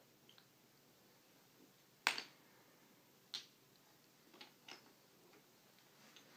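Wooden stacking-toy rings knocking against the peg and against each other: a sharp clack about two seconds in, then three or four lighter clicks.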